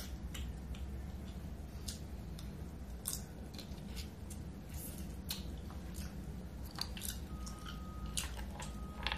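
Close-miked eating sounds: wet lip smacks, chewing and finger-licking clicks from eating sauce-covered shrimp, scattered and irregular over a low steady hum.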